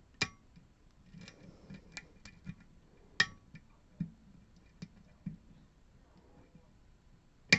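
Small metallic clicks and ticks of a lock pick working the pins inside a Goal P pin-tumbler lock under tension, with three sharper clicks: one just after the start, one about three seconds in and one near the end.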